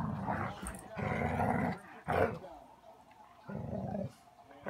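Two dogs play-fighting, growling in four rough bursts of up to about a second each, one of them short and sharp about two seconds in.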